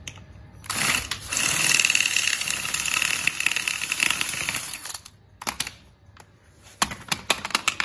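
Cordless drill-driver running steadily for about four seconds with a high whine, backing out a screw during disassembly of a brake assembly. Near the end comes a quick run of sharp clicks and clatter.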